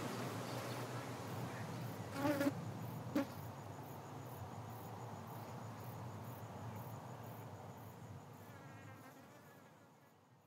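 Outdoor field ambience with insects buzzing, fading out steadily to silence near the end. A short call about two seconds in and a sharp click about a second later stand out briefly.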